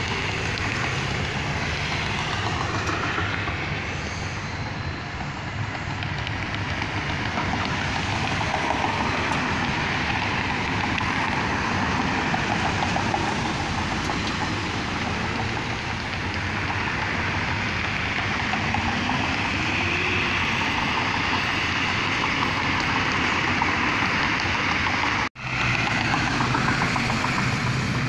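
Road traffic: cars passing close by, a continuous rush of tyre and engine noise, with one engine rising in pitch midway. The sound drops out for an instant near the end.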